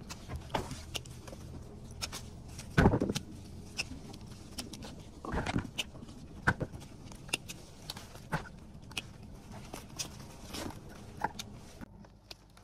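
Wine grapes being hand-picked: irregular snips and clicks of picking shears and rustling of the vines, with a louder knock about three seconds in.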